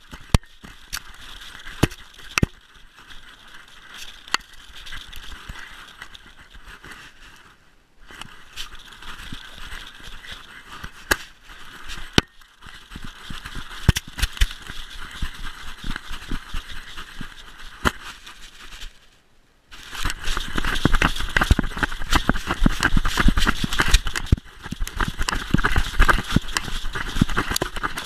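Collar-mounted GoPro on a German Shepherd running through snow: the camera housing and collar rubbing and scraping against fur with frequent clicks and knocks, and paws in snow. It becomes louder and busier about two-thirds of the way through.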